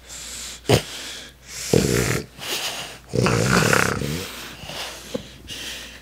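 French bulldog puppy snorting and wheezing in short, rasping bursts while play-biting a hand, with the longest bout in the middle. There are a couple of sharp clicks as well.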